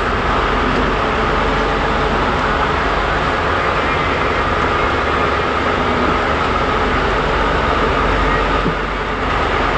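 Fishing boat's engine running steadily under way, a loud, even drone heard from inside the boat's cabin.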